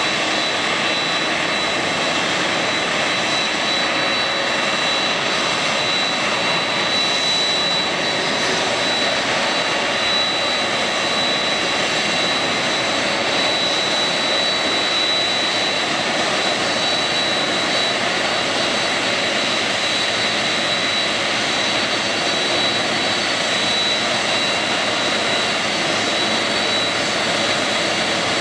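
Boeing 747-400D jumbo jet's four turbofan engines running at taxi power: a steady jet roar with a thin, high-pitched whine held on one note.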